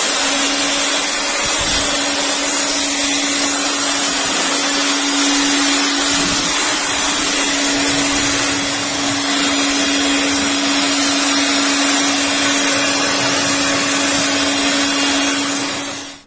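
JAKMISTER 600 W handheld electric air blower running at full speed: a loud, steady rush of air over a constant motor hum. It is switched off near the end and stops quickly.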